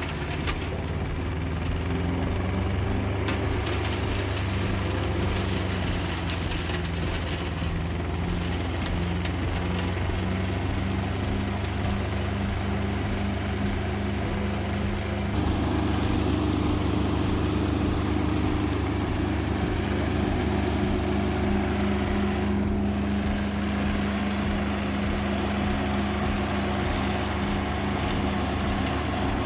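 11 HP Iseki diesel engine running steadily on a flail mower as it cuts through tall grass. About halfway through, the engine note grows a little louder and a higher tone joins it.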